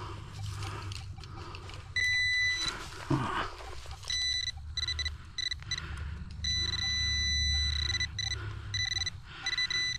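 A metal detector pinpointer beeping with a high steady tone that cuts in and out, then holds for a few seconds, as it is worked over a coin in the hole. A hand digger scrapes through the soil now and then.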